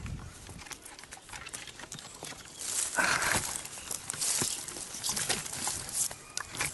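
Leafy branches rustling and swishing against a head-mounted action camera, mixed with scrapes and taps of hands on a coconut palm's rough bark as a climber works up the trunk. The rustling grows loud about three seconds in.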